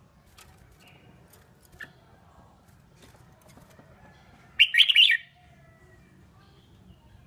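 Red-whiskered bulbul giving one short, loud burst of chattering song a little past halfway, with a faint single chirp earlier.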